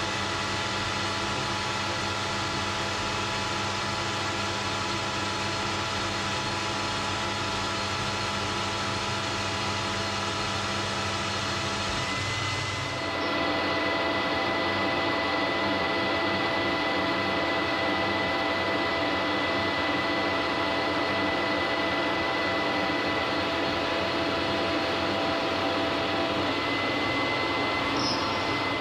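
Metal lathe turning a steel arbor in roughing cuts: the lathe's drive runs with a steady whine while the tool cuts and throws chips. About 13 seconds in the sound shifts, the low hum thinning and a thin high whine coming in, a little louder.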